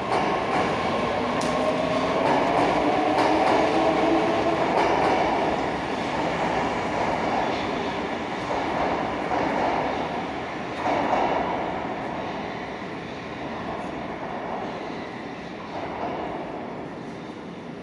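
An 81-724.1 metro train pulling away from the platform and running into the tunnel. Its traction motors whine, rising in pitch over the first few seconds, over a rolling rumble with some wheel clicks, and the sound fades as the train goes.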